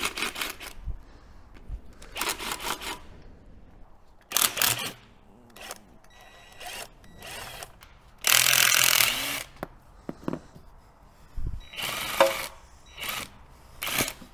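Cordless power tool run in about seven short bursts, undoing the nuts and bolts around an engine-to-gearbox bellhousing. The longest and loudest run, just over a second, comes about eight seconds in.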